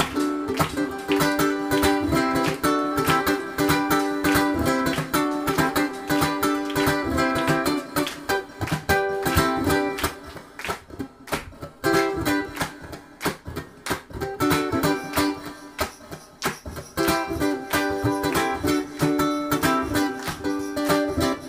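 Ukulele instrumental played live. The music drops to a quieter, sparser passage from about ten to seventeen seconds in, then fills out again.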